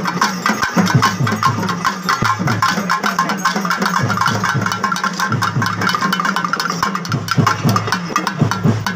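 Tamil folk percussion: pambai drums beaten in a fast, dense rhythm over the clatter of kolattam dance sticks struck together.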